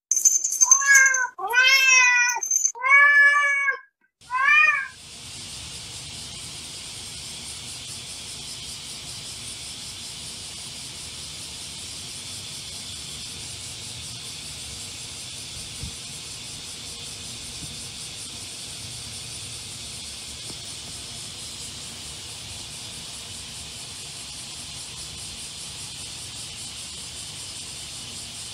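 Four cat meows, each rising then falling in pitch, in quick succession; then, from about five seconds in, a steady high-pitched hiss of a cicada chorus.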